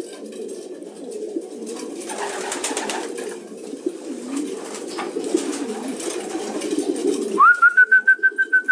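Many racing pigeons cooing together in a loft, a continuous low warbling. Near the end a high electronic beep sounds rapidly, about seven times a second, for a little over a second and is louder than the cooing.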